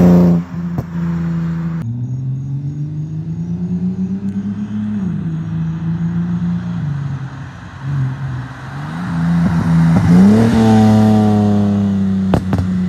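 BMW 328i's N52 straight-six, fitted with Active Autowerke headers and an aFe cat-back exhaust, revving as the car drives past: the exhaust note climbs, drops back about five seconds in, then climbs again into the loudest pull about ten seconds in and holds there.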